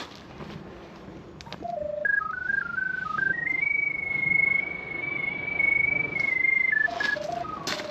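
Electronic drain locator sounding as it picks up the sonde in the pipe: a single pure tone that starts a couple of seconds in and steps up in pitch, holds high through the middle, then steps back down near the end. The tone's pitch tracks signal strength, so the rise and fall mark the locator passing over the sonde's position.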